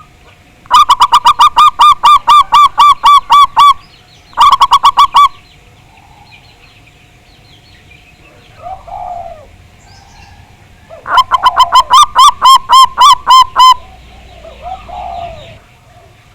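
Zebra doves (perkutut) calling: three runs of loud, rapid staccato notes at about four or five a second, with two short, softer, lower calls between the runs. A faint steady hum lies underneath.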